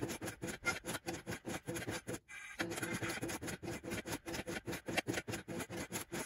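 Re:Zero pachislot machine clicking rapidly, several clicks a second, over its faint background music, with a brief break about two seconds in.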